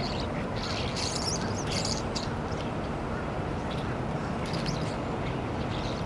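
European starlings, adults and brown juveniles, giving short high chirping calls in bunches near the start and again about four and a half seconds in, over a steady low rush of background noise.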